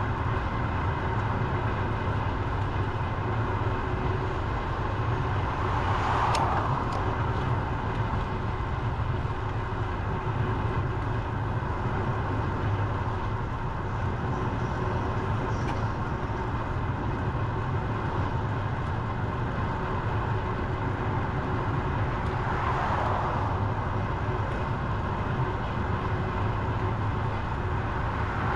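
Steady wind rumble and road noise on a bicycle-mounted action camera while riding, with vehicles passing about six seconds in, again past twenty seconds, and near the end.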